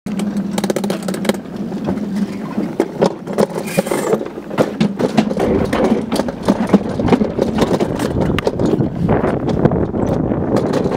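Summer toboggan sled running down a stainless-steel trough, rumbling and rattling with many sharp clacks as it bumps along the channel. A steady hum sounds for about the first second, and the rumble grows denser near the end.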